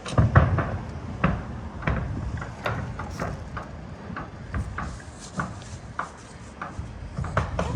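Irregular clicks and knocks, a few a second, with low thumps, the loudest about half a second in.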